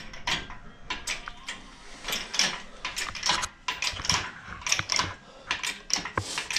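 Engine hoist and its lifting chain clinking and rattling as the hanging V8 engine block sways, a quick irregular run of sharp metal clicks and clanks.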